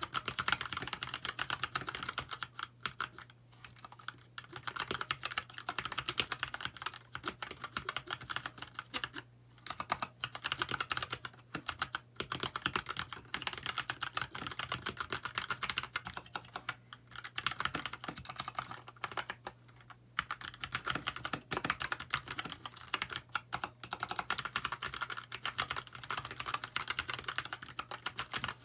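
Continuous fast typing on a Keychron K2 mechanical keyboard with brown (tactile) switches in an aluminium frame: a dense run of keystroke clacks, broken by a few short pauses.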